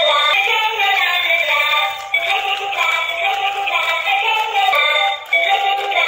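Light-up toy rabbit playing an electronic children's tune with a synthesized singing voice through its small built-in speaker, with no bass and two brief breaks in the tune.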